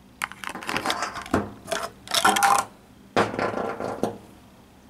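Clear plastic packaging tube of a carbide bur being handled and opened as the bur is taken out: rapid clattering and scraping of plastic in two spells, with a short pause about three seconds in.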